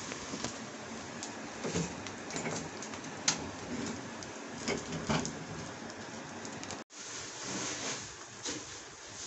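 Gas stove burner flame hissing steadily while cow trotters are singed in it, with scattered crackles and knocks. After a cut about seven seconds in, a pot of trotters bubbling at the boil.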